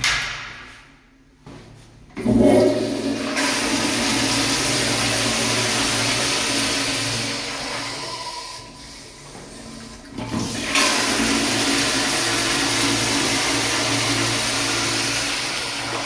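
Public restroom toilet flushing twice: a loud rush of water starts suddenly about two seconds in and eases off, then a second flush starts suddenly near the eleven-second mark and rushes on steadily.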